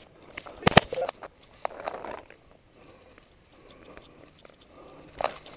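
Paintball markers firing in the woods: a few sharp pops, the loudest two in quick succession about three-quarters of a second in, then single pops a little later and again near the end.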